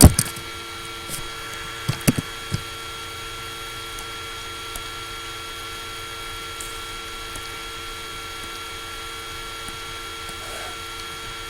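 Laptop cooling fan running with a steady whirring hum, picked up loudly by the laptop's built-in microphone. A loud sharp click at the very start and a few lighter clicks over the next couple of seconds.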